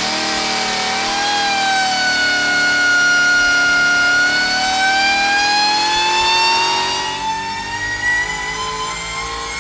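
Supercharged 6.6-litre GM L8T V8 with a Harrop TVS2650 top-mount supercharger making a full-load pull on an engine dyno. Its pitch climbs slowly and steadily as the revs rise toward the top of the pull, and it runs a little quieter over the last couple of seconds. This is the run on the 75 mm supercharger pulley, at about 16 psi of boost on E85.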